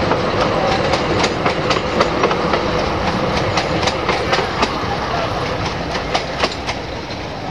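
Narrow-gauge train carriages running along the track: a steady rumble of wheels on rail with many irregular clicks and rattles, and a faint wheel squeal.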